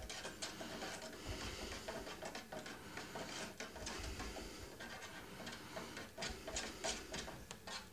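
A spoon stirring a drink in a disposable cup, making faint, irregular small ticks and scrapes against the cup.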